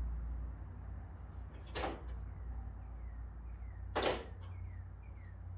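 Two short clacks about two seconds apart, the second louder, with faint small ticks between: tools and a socket set being handled and searched through. A low steady hum runs underneath.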